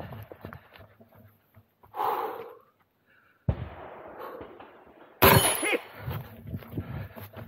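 A single loud gunshot about five seconds in, sharp at the start and ringing briefly, during a practical-shooting stage. Before it come softer noises of the shooter moving, and a shorter, duller burst about two seconds in.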